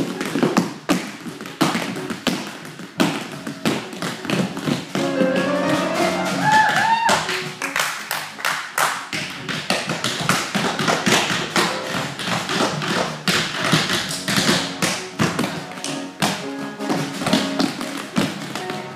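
Tap shoes striking a hard stage floor in fast rhythmic runs of taps, over instrumental music that climbs in a rising run of notes about six seconds in.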